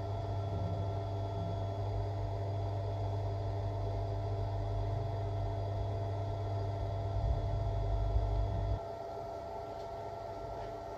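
Steady low electrical hum with hiss and a few faint steady tones above it. The low part of the hum drops away abruptly about nine seconds in, leaving a thinner hiss.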